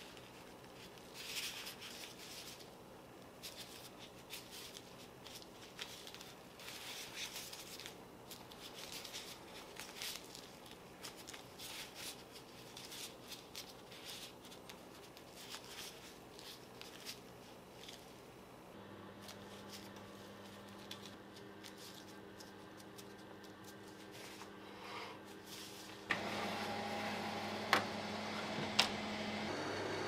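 Soft rustling and light handling noises from plastic food-prep gloves pressing white chocolate pieces into rolled puff pastry. About two-thirds of the way through, the steady hum of an oven running comes in, growing louder near the end with a couple of sharp clicks.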